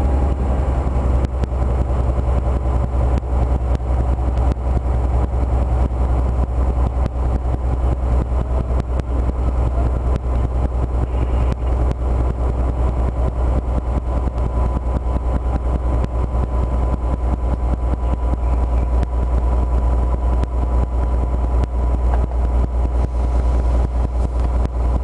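DB V60 diesel shunting locomotive's engine running steadily as it moves slowly with a freight wagon, a deep continuous drone with fine rattling over it. A faint steady whine comes in about halfway through.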